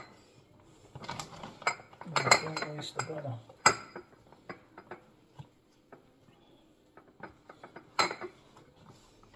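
Kitchen dishes and utensils clinking and knocking as a ceramic casserole dish is handled on a stone countertop, with scattered clicks and sharp knocks about three and a half and eight seconds in.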